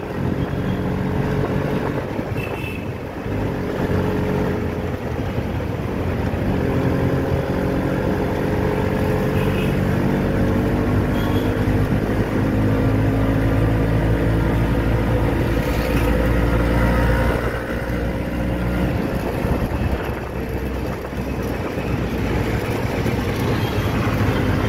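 Engine of a moving road vehicle running as it drives along a busy city road, its pitch rising slowly for several seconds and dropping back about two-thirds of the way through, with road and traffic noise around it.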